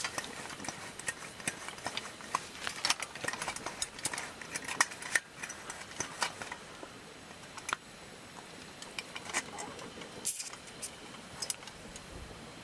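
Irregular small clicks, clinks and rattles of hard objects being handled, with a short lull in the middle.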